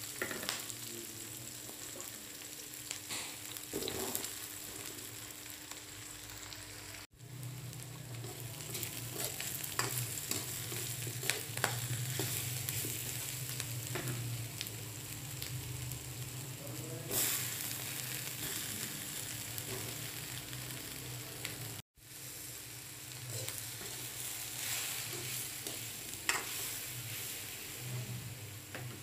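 Chilies, shallots, tempeh and tofu sizzling in hot oil in a wok, with a spatula scraping and clicking against the pan as it stirs. The sound cuts out for an instant twice.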